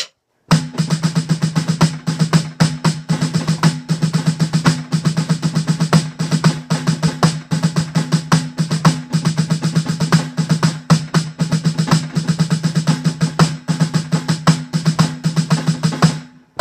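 Rudimental snare solo played with sticks on an electronic drum kit's mesh snare pad: a continuous stream of rapid strokes, some louder as accents. It starts about half a second in and stops shortly before the end.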